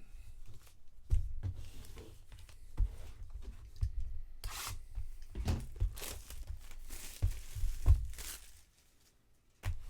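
Baseball card pack wrappers being torn open and handled, with several short bursts of tearing and crinkling over repeated dull knocks and bumps.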